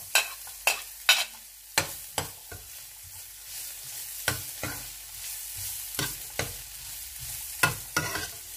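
Minced garlic and ginger frying in oil in a nonstick pan, a steady sizzle, while a slotted spatula stirs them, knocking and scraping against the pan about a dozen times.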